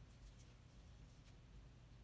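Near silence: faint low room hum, with a couple of faint rustles.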